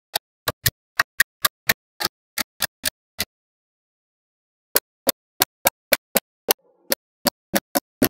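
Small magnetic balls clicking as blocks of them snap into place: sharp single clicks about four a second, with a pause of about a second and a half midway.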